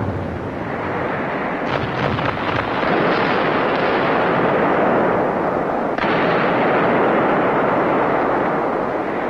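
Continuous battle noise of explosions and gunfire, with new blasts breaking in about two seconds in and again about six seconds in.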